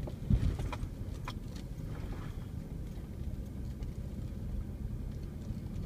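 Vehicle engine and drivetrain rumbling low and steady, heard from inside the cab while driving slowly over a rough dirt trail, with a knock about a third of a second in and a few light rattles soon after.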